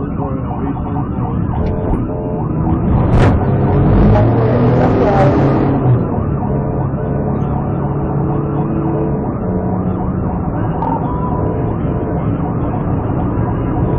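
Police car siren wailing over the patrol car's engine and road noise during a high-speed pursuit, with a louder rush of noise a few seconds in.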